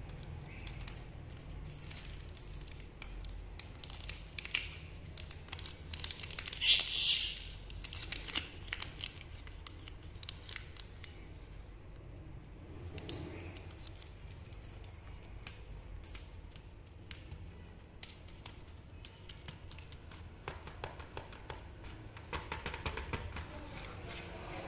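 Plastic Cadbury Dairy Milk chocolate bar wrappers and cardboard biscuit boxes crinkling and rustling as they are picked up and handled, with scattered clicks. The loudest crinkling comes about seven seconds in.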